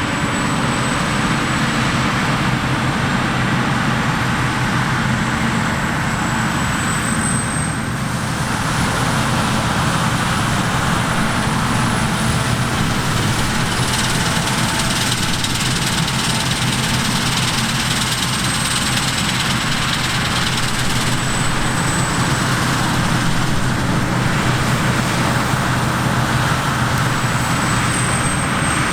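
Large diesel harvest machinery running steadily under load, an even engine drone under a broad mechanical rush, with a thin high whine that drifts slightly in pitch.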